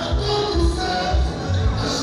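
Live band music played loud through a PA, with a heavy, pulsing bass beat under held instrument and voice tones.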